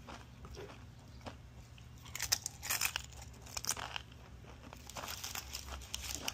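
Close-up crunching and chewing of tortilla chips, in bursts of crisp crackling about two seconds in and again from about five seconds in.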